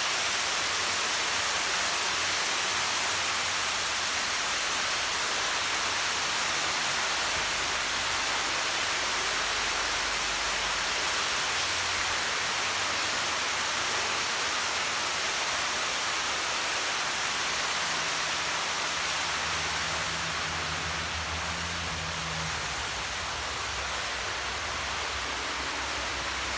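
Water from a swimming-pool water feature splashing and rushing in a steady, even hiss.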